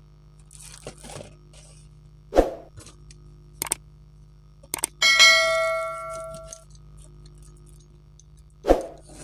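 A couple of sharp knocks and small clicks, with one bright ringing ding about halfway through that fades over about a second and a half.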